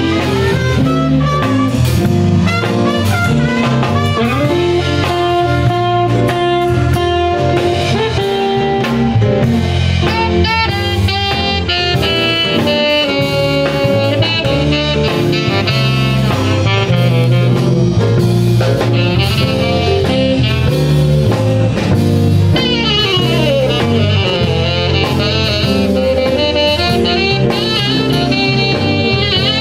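Live blues-jazz band playing an instrumental passage: trumpet and saxophone over guitar and drum kit, with a long falling run about two-thirds of the way through.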